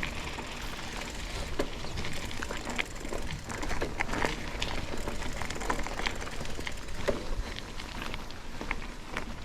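Bicycle rolling along a trail: tyres crunching with scattered small ticks and crackles, over a steady low rumble of wind on the microphone.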